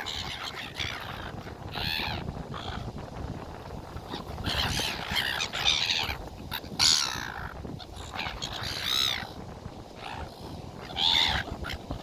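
A flock of birds calling while feeding: a series of harsh calls, some overlapping, coming every second or two over a steady low background noise.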